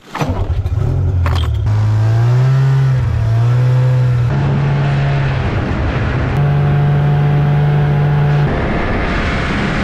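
Arctic Cat snowmobile engine catching on the choke in deep cold, then running as the sled pulls away. Its note wavers up and down for the first few seconds, then holds steadier, dropping back near the end.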